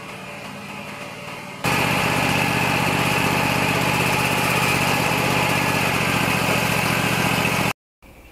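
Wood-Mizer LT40 sawmill's engine running steadily. It gets much louder suddenly about a second and a half in, then stops abruptly near the end.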